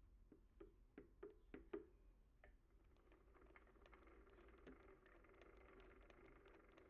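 Faint sounds of a mini lathe: a handful of sharp clicks or knocks in the first two seconds, then the lathe running with a faint steady hum and scattered light ticks while the threading tool cuts.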